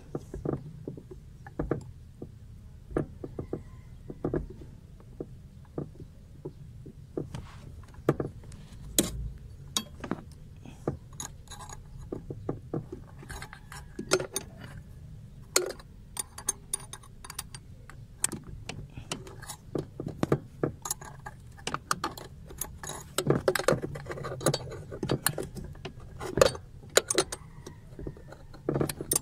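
Irregular metal clicks, clinks and knocks of hand work on the brake pedal linkage under a car's dashboard, fitting the brake master cylinder's push rod and mounting bolts in a cramped space. The clicks come thicker in the second half, over a steady low hum.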